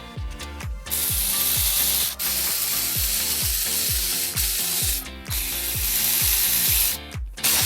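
Air ratchet running in long spells with a few short breaks, over background music with a steady beat.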